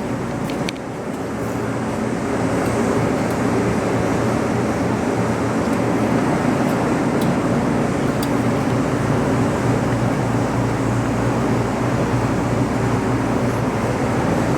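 Heidelberg Stahl B20 paper folder humming steadily while its automatic setup drives the fold plates into position for a new job. It grows a little louder over the first couple of seconds, then holds level.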